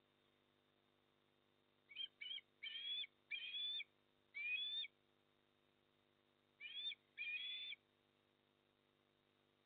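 Eastern osprey calling: a run of five short, rising whistled chirps about two seconds in, then two more about seven seconds in.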